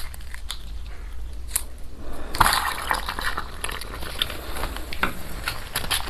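Close-miked crunching of ice: a few sharp cracks, then a loud crunch about two and a half seconds in, followed by quick crackling crunches as the ice breaks up.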